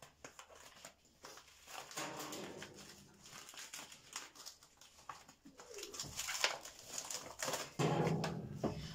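Plastic-wrapped frozen meat packs handled and set into plastic basins of water to thaw: crinkling, light knocks and small splashes. A low pitched call about a second long comes near the end.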